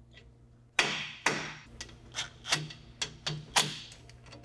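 Cast-iron main bearing caps being set down onto the main saddles of a Chevy 400 small-block over the crankshaft: a string of sharp metal clanks and taps with short ringing tails, about eight of them in three seconds, starting about a second in.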